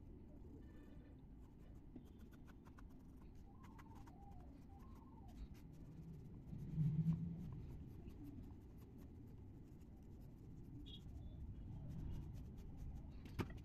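Graphite mechanical pencil scratching on paper in quick, faint sketching strokes. A brief low bump comes a little past halfway, and a sharp click near the end.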